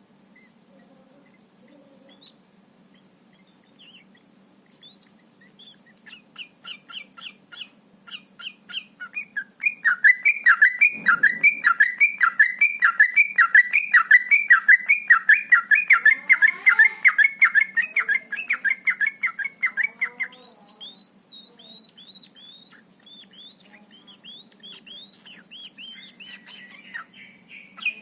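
Yellow-vented bulbul (trucukan) singing. After a few scattered calls, a fast run of rapidly repeated chirping notes starts about six seconds in and grows loud for roughly fifteen seconds: the rapid 'ropel' phrasing. It then gives way to softer, varied chirps over a steady low hum.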